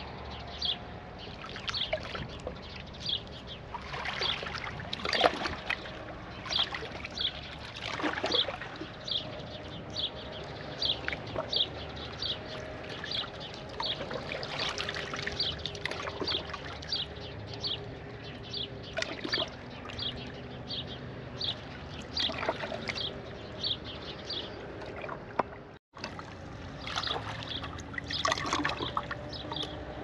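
Small waves lapping and splashing against a harbour pier, with a bird chirping over and over, about one or two short chirps a second. A faint low hum shifts in pitch underneath.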